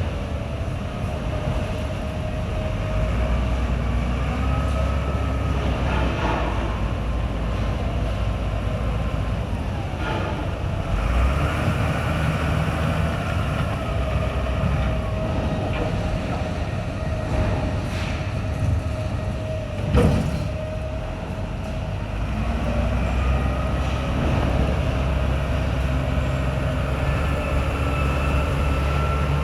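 Wheel loader's diesel engine running as it works, the deep rumble swelling for several seconds at a time, with a steady whine over it. A single sharp knock about twenty seconds in.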